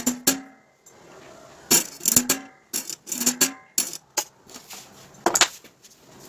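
Hard parts, most likely metal, knocking and clinking together as they are handled: a series of sharp, irregular knocks, several with a brief ring after them.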